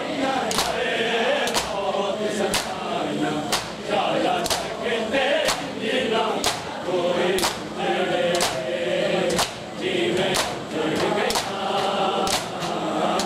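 A crowd of men chanting a noha in chorus, with sharp unison chest-beating slaps (matam) landing about once a second.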